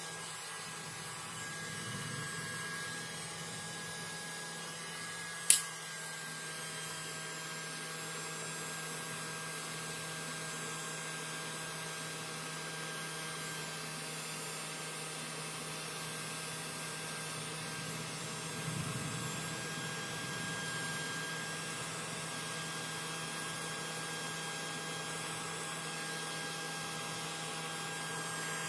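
Hot air blower running steadily over a circuit board, a constant airy hum, drying it after cleaning. A single sharp click about five and a half seconds in.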